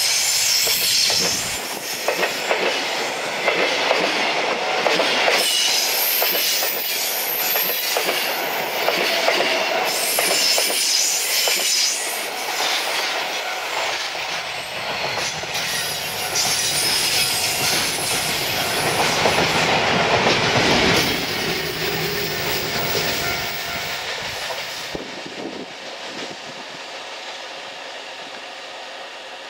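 Container freight train wagons rolling past on a curve: wheels clacking over rail joints with high wheel squeal. About two-thirds of the way through the sound starts to fade as the end of the train moves away, and it dies down to a low hiss near the end.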